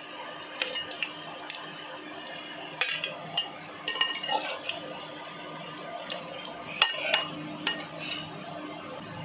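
Metal spoon clinking and scraping against a kadai and plate as fried mushroom pakoras are lifted out of the oil, in scattered sharp clinks, the loudest about seven seconds in.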